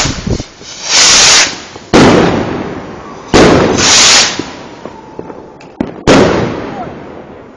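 Fireworks going off: a hissing burst about a second in, then three loud bangs about two, three and a half and six seconds in, each trailing off with a rumbling decay.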